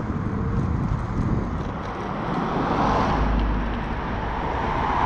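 Wind rushing over the microphone of a bicycle-mounted camera while riding along a street. Heavier low rumbling gusts come about three seconds in and again near the end.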